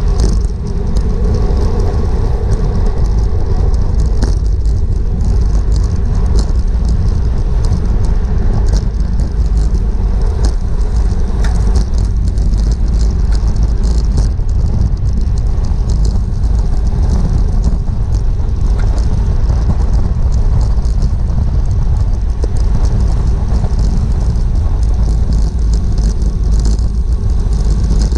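Wind buffeting the microphone of a bicycle-mounted action camera at racing speed: a loud, steady rumble with scattered clicks and ticks from the bike and road over it.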